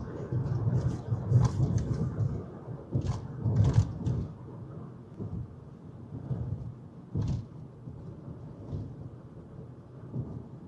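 Low, uneven rumble of road and wind noise inside a moving vehicle, with several sharp knocks, most in the first four seconds and one more about seven seconds in.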